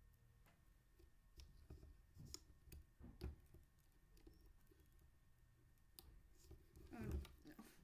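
Near silence with faint scattered clicks and taps of a plastic glue bottle being handled as fingers work at its nozzle cap, and a short louder squeak near the end.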